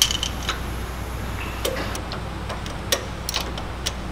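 Wrench ratchet clicking in short irregular runs as bolts on a Salisbury differential are torqued down to 95–105 ft-lb.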